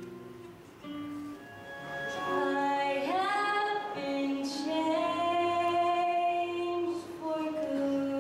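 A girl singing into a microphone on a stage, with an upward swoop into a long held note about three seconds in. The singing follows a few soft acoustic guitar notes at the start.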